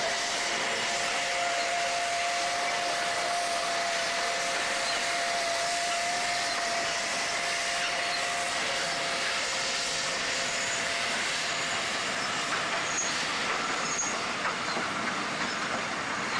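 A 4-8-2 colliery steam locomotive and its coal wagons rolling slowly past, with a steady hiss of escaping steam. A steady high tone sounds over it and stops about eleven seconds in.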